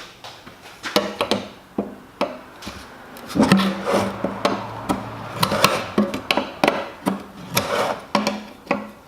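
A forged wrought iron paint can opener levering the lid off a metal paint can: a series of sharp clicks, knocks and scrapes as the tip is worked under the rim and cranked up.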